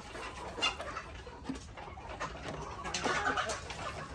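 Chickens and other birds calling softly in a hen house, with a few light clicks.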